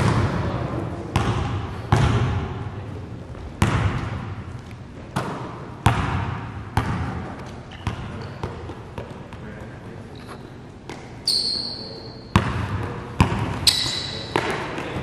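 Basketballs bouncing on a gym floor, sharp echoing bounces roughly one a second, with a quieter stretch in the middle. Two brief high squeaks come in the second half.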